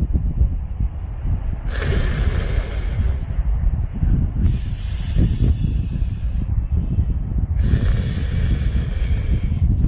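A cat hissing three times, each hiss lasting about two seconds: a defensive threat hiss at another cat. Wind rumbles on the microphone throughout.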